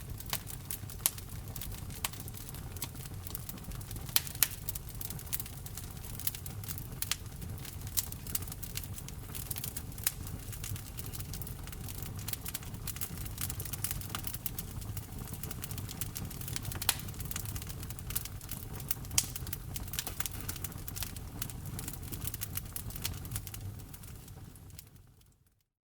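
Wood fire in a fireplace crackling, with frequent sharp pops from the burning logs over a steady low rumble. It fades out just before the end.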